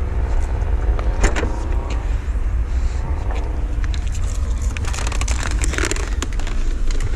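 Person climbing into a BMW i8's driver's seat through its upward-opening door: scattered clicks, knocks and rustling over a steady low rumble.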